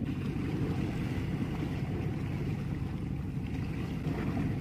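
Steady low rumble of wind and sea water at a rocky shoreline, with no distinct events.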